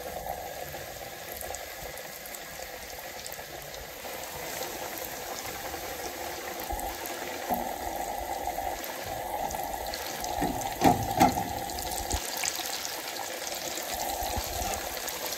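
Flour-crumbed chicken pieces deep-frying in hot oil in a kadhai over a low flame: a steady sizzle, with a few brief louder sounds about ten to eleven seconds in.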